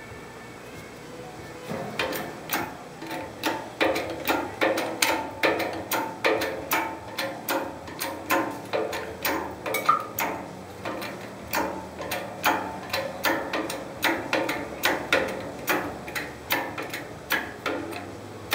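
Hydraulic shop press bending a steel gusset plate in a press-brake die: a steady run of sharp metallic clanks, about two or three a second, starting about two seconds in.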